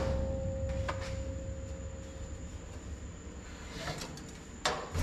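A steel firewall panel rings with a single clear tone after being set down, fading away over about the first second, over a low dying rumble. A light metallic knock comes about a second in and another near the end.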